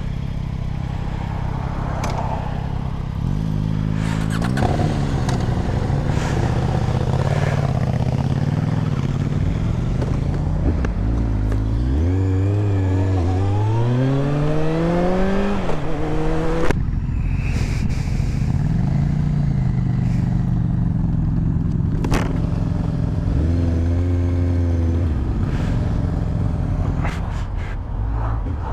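Motorcycle engine pulling away and accelerating through the gears, its pitch climbing in long sweeps and dropping sharply at a shift about two-thirds of the way in, then running steadier at road speed, with wind rush over the microphone.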